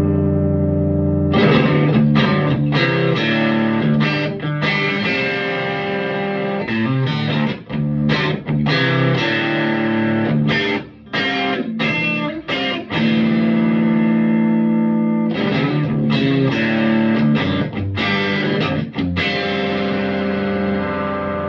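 Electric guitar played through a Vintage Sound Amp (VSA) set at about 6.5 volume, pickup selector in the middle position, giving a lightly overdriven tone. It plays ringing chords and riffs, struck repeatedly with a few short breaks between phrases.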